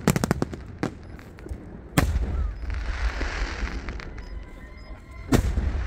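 Aerial fireworks: a quick string of sharp pops at the start, then a loud burst about two seconds in and another near the end, each followed by a crackling hiss as the stars burn out, over a low rumble.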